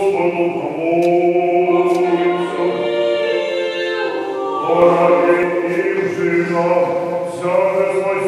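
Russian Orthodox church choir singing liturgical chant a cappella: several voices hold long chords over a steady low note, and the chord shifts a few times.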